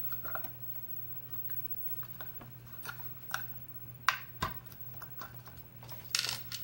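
Scattered light metal clicks and scrapes of a small tool working the retaining clip off the back of a key-in-knob lock cylinder, with a few sharper clicks near the end, over a low steady hum.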